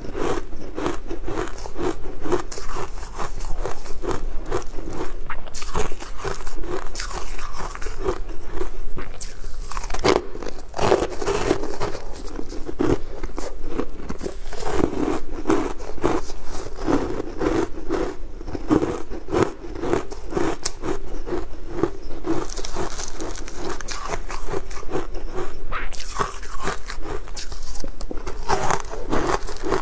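Close-miked biting and chewing of a crunchy, crumbly food: many irregular sharp crunches in quick succession, over wet chewing sounds.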